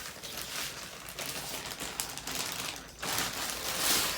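Irregular crinkling and rustling as clothes in their plastic packaging are handled and unfolded, louder about three seconds in.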